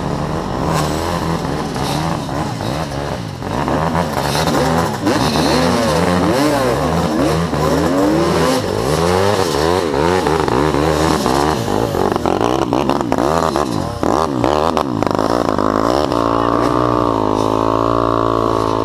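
Honda motocross bike engine revving hard on a steep dirt climb, its revs surging up and down rapidly, then holding a steadier high rev that slowly rises near the end, with scattered sharp knocks.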